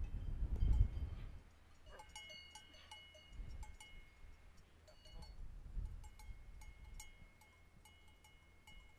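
Bells on grazing livestock clinking irregularly, each strike leaving a short ringing tone. Wind gusts on the microphone at the start die away after about a second.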